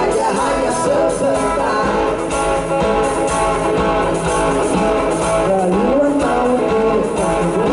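Live rock band playing a song: electric guitars, bass and drum kit, with a lead vocal sung over them.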